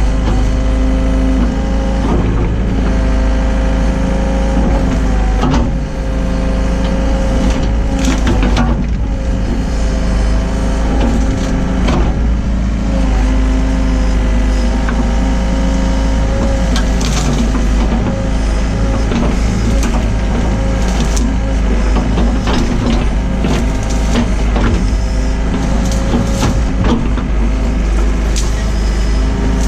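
Hyundai excavator's diesel engine running steadily under load, with repeated knocks, cracks and crunches from the bucket digging through the ditch.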